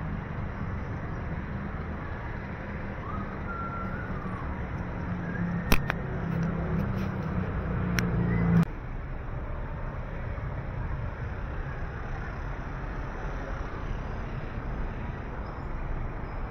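Street ambience with a motor vehicle's engine rumbling close by. A sharp click comes about a third of the way in and another shortly before the rumble cuts off abruptly, just past halfway. After that only the steady street hum remains.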